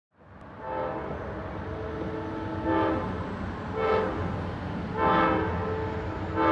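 Horn of the Amtrak Silver Star's locomotive sounding a multi-note chord, held and swelling louder four times in even pulses, over a low rumble from the train.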